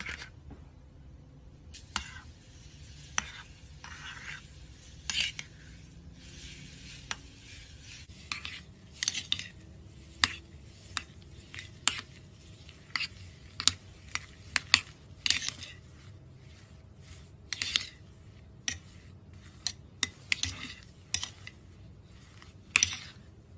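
A utensil stirring foam beads into slime in a glass bowl, making irregular crackles, squishes and clicks against the glass. The clicks come much thicker about a third of the way in.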